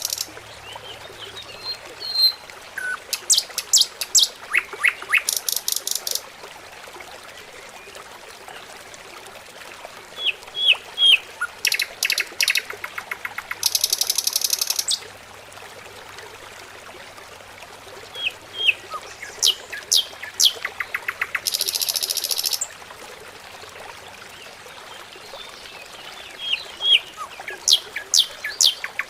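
A small songbird singing the same phrase over and over, roughly every eight seconds: a few short, sharp chirps followed by a long, very high, buzzy trill.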